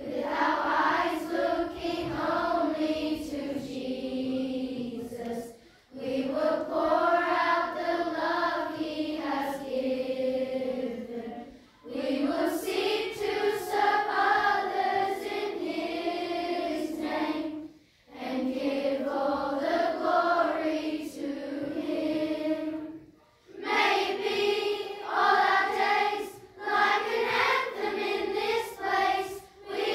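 Children's choir of schoolgirls singing together in long sung phrases, with brief pauses between them.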